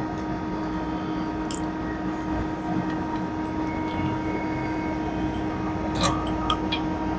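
Steady machine hum of an FBD Slurpee frozen beverage machine running, with a few light clicks about a second and a half in and again around six seconds in.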